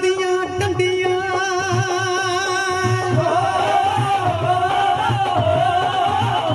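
Live Punjabi folk song: a male singer holding long, wavering notes over keyboard and a steady dholak beat.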